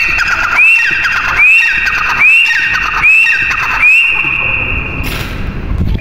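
Grey francolin calling: a loud run of about six high, shrill notes, each sliding quickly upward and then held briefly, repeated about every 0.8 seconds. The calling stops about five seconds in.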